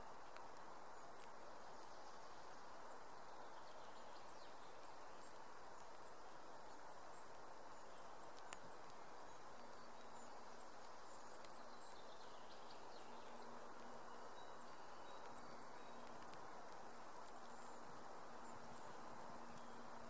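Faint outdoor woodland ambience: a steady hiss with scattered faint high chirps, one sharp click about eight and a half seconds in, and a faint low hum that comes in halfway through.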